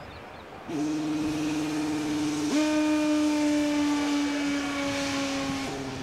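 Ballast train giving a long, steady pitched tone that starts about a second in, steps up to a higher, brighter pitch about two and a half seconds in, and drops back to the lower pitch near the end.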